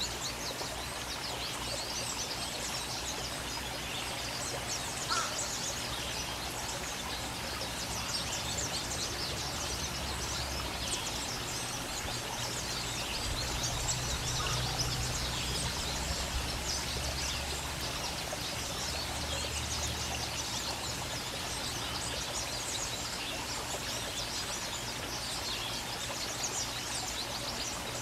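Outdoor ambience of many small, high bird chirps over a steady hiss, with a low hum that swells in the middle.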